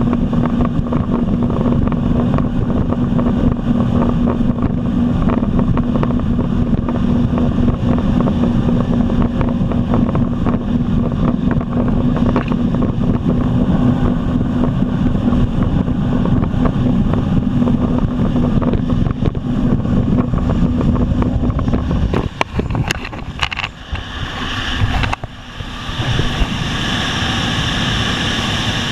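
Jet ski engine running at a steady cruising speed, with wind buffeting the microphone and water rushing past the hull. About three-quarters of the way through, the engine note drops away and the sound dips briefly, then turns into a steady hissing rush.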